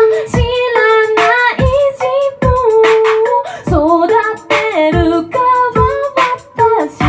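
A woman singing a song live into a microphone, accompanying herself on an acoustic guitar with steady, regular strums. Her sung notes are held and glide between pitches.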